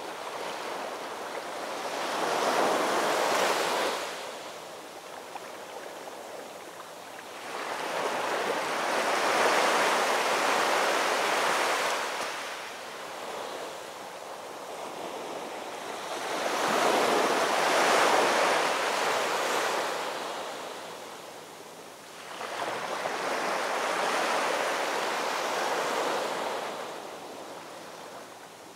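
Ocean surf washing in, rising and falling in four slow surges about seven seconds apart.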